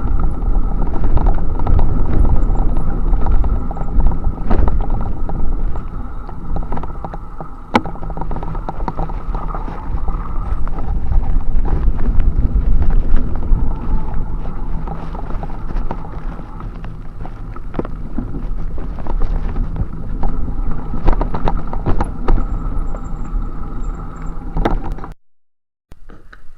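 A bicycle being ridden: a steady loud rumble with frequent sharp clicks and rattles from the bike, cutting off suddenly near the end.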